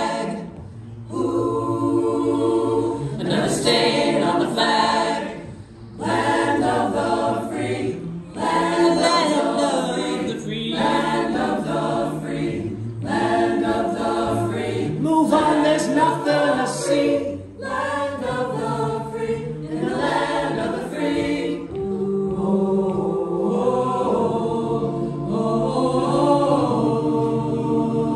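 Mixed-voice choir singing a cappella in harmony, in phrases with short breaks between them; from about 22 seconds in the voices hold longer chords.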